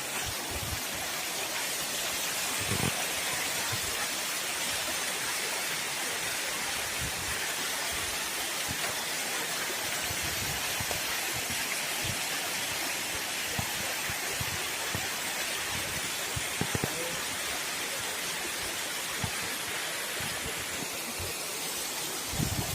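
Steady rushing of falling water from a waterfall and its stream, with a few faint low knocks.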